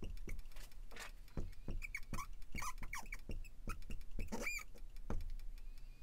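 Marker squeaking and tapping on a glass lightboard as words are written: a run of short squeaks and taps, with one longer, higher squeak about four and a half seconds in.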